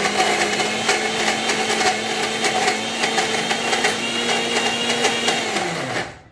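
Electric mixer grinder with a steel jar running on its lowest speed, blending a thick cake batter of ragi flour, banana and dates: a steady motor hum with scattered clicks from the jar, which winds down in pitch and stops near the end.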